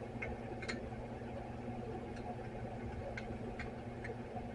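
Faint, irregular light clicks of a small screwdriver turning the drain plug screw into a Honda CB900 carburetor float bowl, over a steady low hum.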